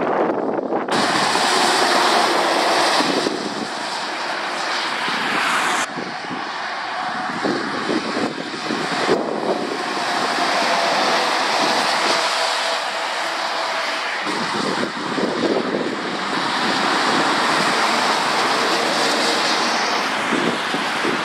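Lorries and a car passing on a wet road: a steady drone of diesel engines under the hiss of tyres on the wet surface. The sound changes abruptly about a second, six seconds and nine seconds in.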